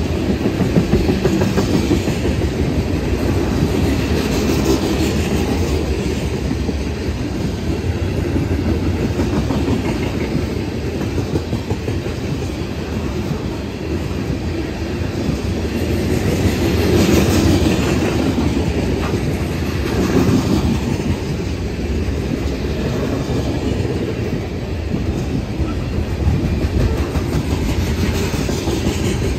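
Coal gondolas of a long freight train rolling past close by, their steel wheels rumbling and clattering steadily over the track. The sound swells a little louder about two-thirds of the way through.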